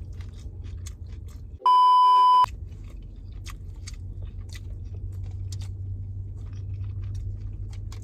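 A loud, steady censor bleep tone lasting under a second, about two seconds in, blanking out all other sound while it plays. Around it, chewing with small wet mouth clicks over a low steady hum.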